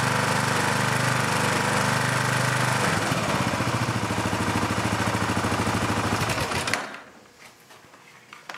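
Kawasaki KLR650 single-cylinder four-stroke engine running at a raised speed during a charging-voltage test. About three seconds in it slows to separate, slower firing pulses, and it stops abruptly near the end, leaving a few faint clicks.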